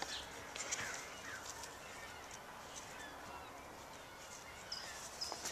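Quiet outdoor background with a few faint bird chirps and light clicks and rustles of the shrub's branches being handled; a thin, high steady tone starts near the end.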